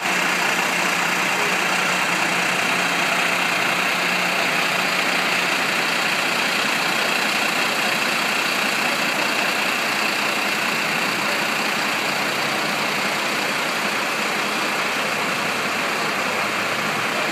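Water gushing steadily from a burst pipe, a constant loud rushing hiss, with a faint low hum underneath.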